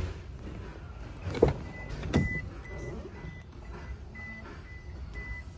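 Two clunks of a pickup's door being handled about a second and a half and two seconds in, then a high electronic beep repeating about twice a second.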